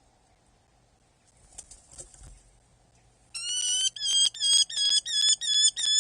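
Brief rustling and scuffling at the nest, then an adult Eurasian hobby calling close by: a loud, evenly repeated series of six or seven shrill 'kew' notes.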